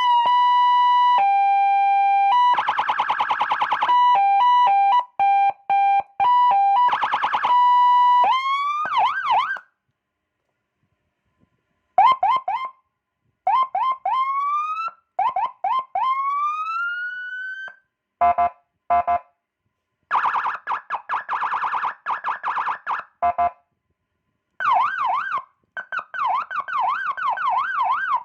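Landun CJB100A electronic police siren stepping through its tone patterns. It starts with a steady tone that drops in pitch, broken by two buzzing air-horn blasts. Then come fast yelps, a short pause, a run of rising whoops, stuttering beeps, a pulsed tone and a fast warble.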